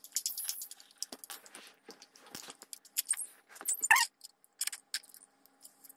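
Irregular light clicks, rustles and clinks of small objects being handled, loudest about four seconds in, over a faint steady hum.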